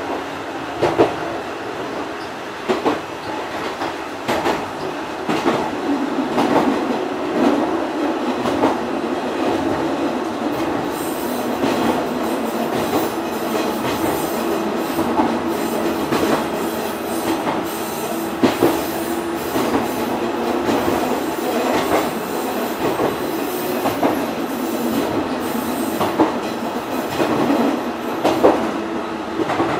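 Fukui Railway Type 200 articulated railcar (car 202-2) running along the line: wheels clicking over rail joints at irregular intervals, with a steady tone setting in a few seconds in.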